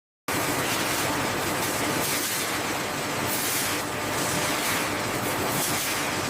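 Factory machinery running: a steady, dense hiss with a fine rattle and a faint hum, cutting in abruptly just after the start.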